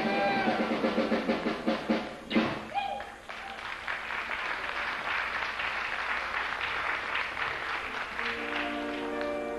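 A live country band with electric guitar and drums finishes a song on a final hit about two seconds in, and the audience applauds. Near the end, sustained notes come in as the next number starts.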